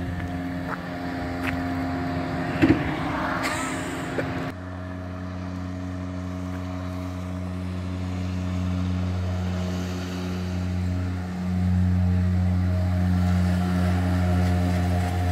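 Gladiator 5 hp outboard motor on an inflatable boat running steadily at high throttle, pushing the boat at planing speed, and growing louder after about eleven seconds as it comes closer. A brief loud crackle comes a little under three seconds in.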